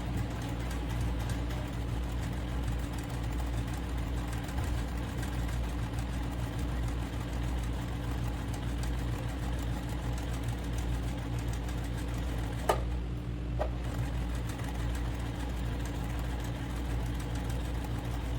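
Electric sewing machine running steadily as it stitches a straight seam through layered fabric, with two sharp clicks close together about two-thirds of the way through.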